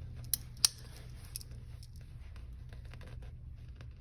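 A few small sharp clicks from a Victorinox Swiss Army knife being handled as its folding tools are worked: two close together near the start, then a fainter tick about a second later. A low steady hum sits underneath.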